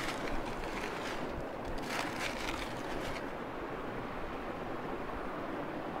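Steady wind noise on the microphone. Over the first three seconds, dry crackly rustling as soil and dry roots are crumbled by hand from the base of a young Turkish pine (Pinus brutia).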